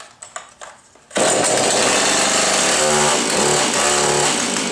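Husqvarna 450 two-stroke chainsaw, cold, fires about a second in after a few light clicks and then runs loudly and steadily, its pitch wavering a little, with the chain brake set and the decompression valve still open.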